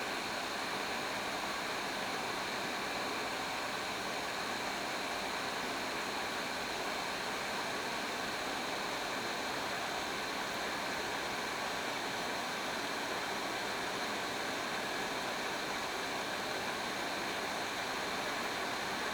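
Hot-air heat gun running steadily, an even hiss of blowing air with no change in level, as it heats solder under copper desoldering braid to lift it off circuit-board pads.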